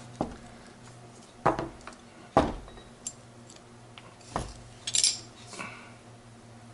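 Steel gearbox parts clicking and clunking as the 1-2 synchro hub of a Ford 2000E gearbox is shifted by hand between first and second gear on the bench: several separate metallic knocks, one about five seconds in with a brief bright ring. Second gear is not yet engaging cleanly.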